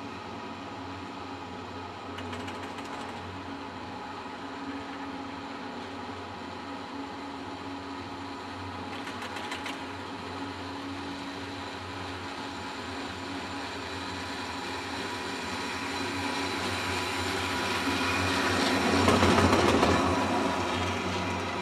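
Von Roll VR 101 single chairlift in motion: a steady hum from the running haul rope and chair, with a few short rattling clicks, then a louder clatter building to a peak near the end as the chair's grip runs over a tower's sheave rollers.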